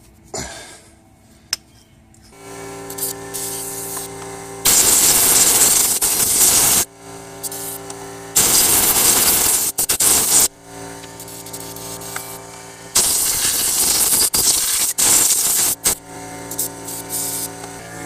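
Impact driver with a 10 mm hex socket loosening the tensioner pulley bracket bolts: the motor whirs steadily, then breaks into a loud hammering rattle three times, each spell about two seconds long.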